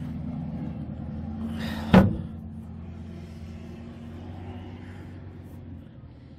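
A single sharp thump about two seconds in as the aluminium boat's rear storage hatch lid is shut, over a steady low motor hum that slowly fades.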